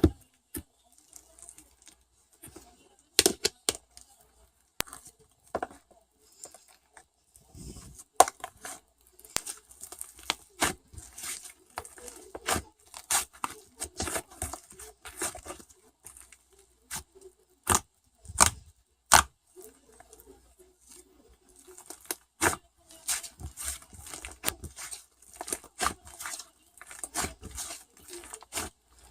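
An irregular run of sharp clicks and taps mixed with short scratchy, rustling noises, like tearing or crinkling, in a small room.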